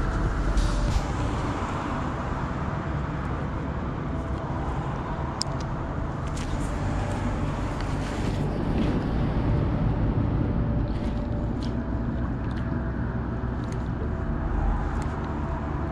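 Steady rumble of road traffic crossing the bridge overhead, with occasional small clicks.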